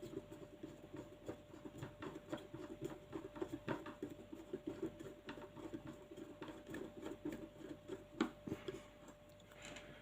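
A small screwdriver backing a screw out of a plastic airsoft hop-up unit: faint, rapid, irregular clicks and scrapes of the driver tip and turning screw, with small handling taps of the parts.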